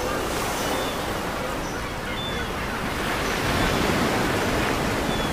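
Ocean surf breaking on a sandy beach: a steady wash of waves that swells a little about three and a half seconds in.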